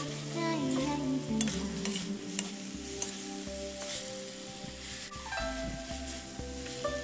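Noodles sizzling in a hot wok as they are stir-fried, a metal spatula scraping and clicking against the pan.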